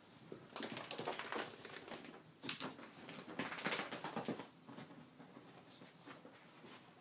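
A chihuahua scrambling and burrowing under a puffy comforter, the bedding rustling in irregular bursts that die down after about four seconds.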